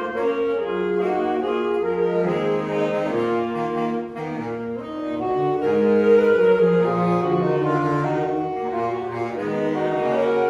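Woodwind ensemble playing a slow, flowing passage in several parts, with held notes in harmony over a moving bass line.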